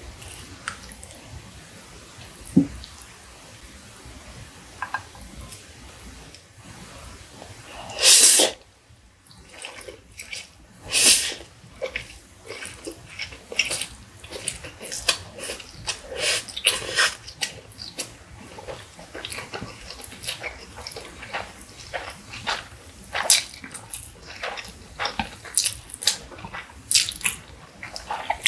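Close-miked eating of Indomie Mi Goreng noodles: two long loud slurps about eight and eleven seconds in, then a run of quick, wet chewing and mouth sounds.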